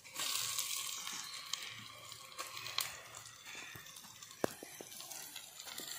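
Raw chicken pieces going into hot coconut oil in a clay pot and sizzling, with faint crackling. The sizzle is strongest in the first second as the pieces go in, then settles to a quieter steady frying hiss.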